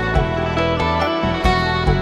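Background music.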